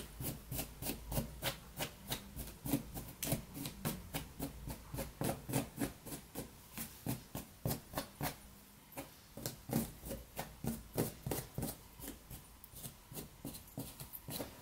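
Rapid rhythmic scrubbing strokes, about three a second, briefly pausing about eight seconds in and then going on.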